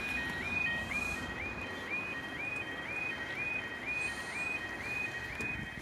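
Level crossing alarm sounding: a two-tone yodel that steps up in pitch and repeats about twice a second, over a steady hiss.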